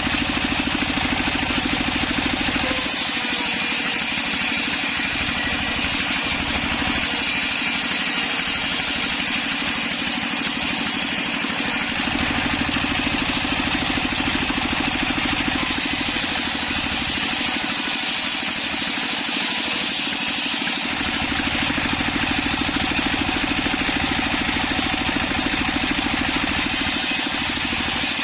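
Homemade circular saw running steadily while sawing sengon wood into rafters. Its sound shifts every few seconds as the work goes on.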